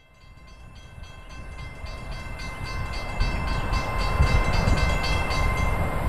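Rumble of an approaching train growing steadily louder, with a few steady high tones and a fast rhythmic clicking over it: the build-up of a realistic Doppler train pass-by before the horn sounds.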